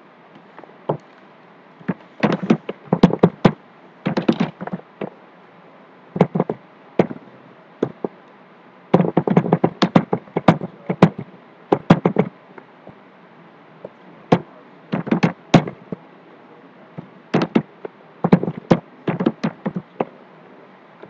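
Computer keyboard typing: quick runs of key clicks in about five bursts, separated by pauses of a second or two.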